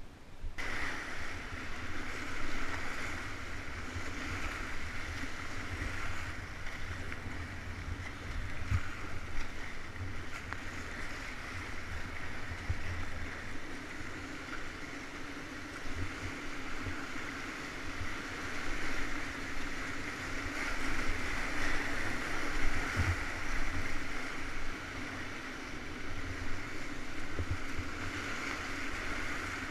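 Whitewater river rapids rushing around a kayak paddling through them: a steady, even rush that comes in suddenly just after the start, with irregular low thumps underneath.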